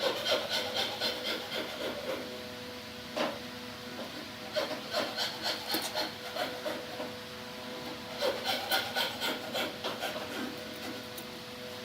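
A hand tool worked back and forth on wood in quick rhythmic strokes, sawing or rasping, about three strokes a second, in three bouts with short pauses, over a faint steady hum.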